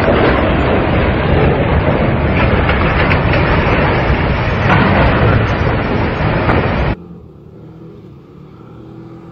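A large ship's steel hull ramming and grinding into another ship's hull: a loud, continuous crashing and scraping with scattered knocks that cuts off suddenly about seven seconds in. After it, a much fainter, steady engine hum from a distant speedboat.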